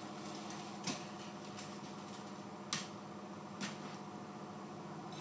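A steady low mechanical hum with three short light clicks, about one, nearly three and nearly four seconds in.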